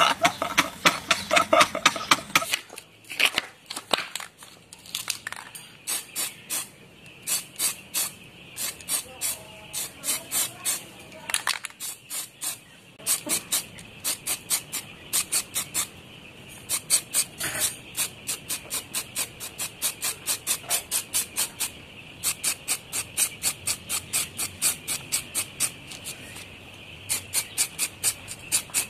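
Two men laughing for the first couple of seconds, then an aerosol spray-paint can hissing in rapid short bursts, several a second in runs with brief pauses, as a thin first coat of gold paint goes onto a motorcycle rim.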